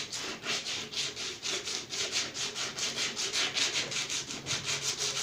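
Sandpaper rubbed back and forth on a cylindrical metal part of a 6-volt Delco-Remy generator, in quick, even strokes about six a second. The part is being sanded down to bare silver metal for a better electrical contact.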